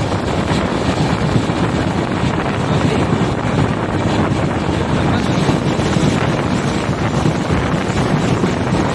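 Steady running noise of a moving Indian Railways express train, with wind buffeting the microphone.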